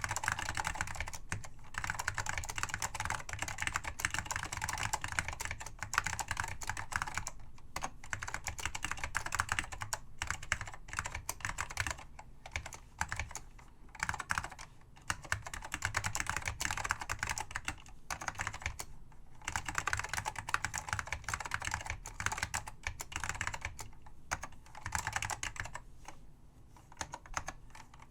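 Apple M0116 mechanical keyboard with Alps SKCM Salmon switches being typed on quickly and continuously, a dense run of key clacks broken by a few brief pauses.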